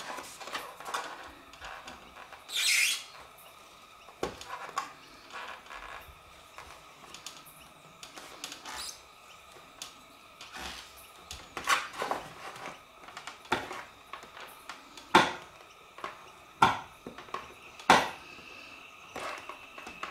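Plastic scoring tool scraping and tapping along thick glossy photo paper on a hard board, pressing grooves into the edge of a paper chip bag. There is a longer rasping scrape about two and a half seconds in and a few sharp taps near the end.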